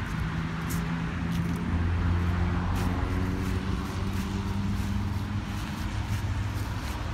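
1998 Jaguar XJR's supercharged 4.0-litre V8 idling steadily, with light crackles of footsteps on dry leaves.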